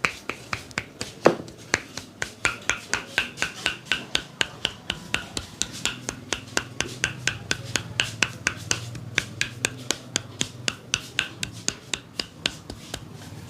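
Barber's hands striking a client's head and neck in a rapid percussive massage, an even run of sharp slaps at about four a second.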